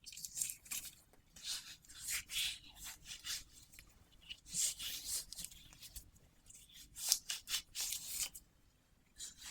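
Close-miked ASMR handling sounds: short, irregular rubbing and rustling strokes in quick clusters, with brief pauses between groups.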